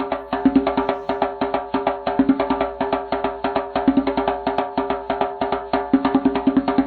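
Band music with a fast, even clicking percussion beat over held pitched notes.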